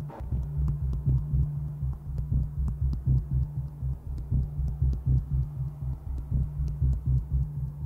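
Dark electronic background music: a low humming drone with a regular throbbing pulse like a heartbeat, and faint ticks above it.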